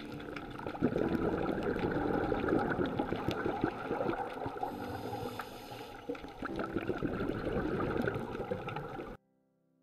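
Underwater sound picked up by a diver's camera: a steady wash of water noise full of small clicks and crackles, cutting off abruptly about nine seconds in.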